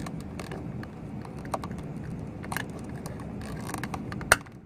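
Light plastic clicks and scrapes as a clear lens cover is worked onto a door courtesy light housing, with one sharp click about four seconds in, over a steady low hum.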